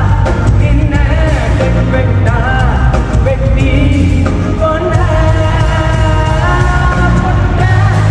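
Live band music played loud, with heavy bass and drums under a bending melodic lead line.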